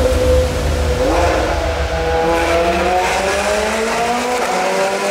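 Ferrari V8 engines accelerating hard in a road tunnel, the engine note rising steadily for several seconds and echoing off the tunnel walls.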